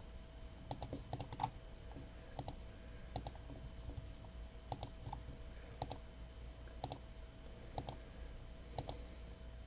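Faint, scattered clicks of a computer mouse, some in quick pairs.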